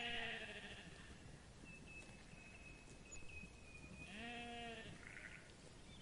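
Black-headed sheep bleating twice: one call tailing off within the first second, then a shorter bleat about four seconds in.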